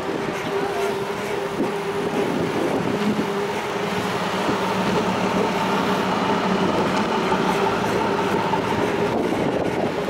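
Rolling noise of a bicycle ridden on asphalt: a steady rattle and tyre hiss, with a steady hum underneath.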